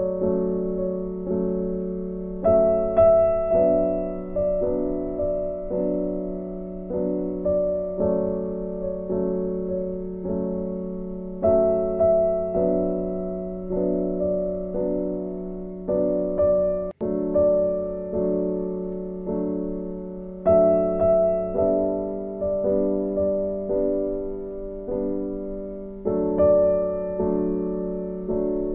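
Background piano music: a slow, gentle melody of notes that strike and fade away, with a momentary cut-out about seventeen seconds in.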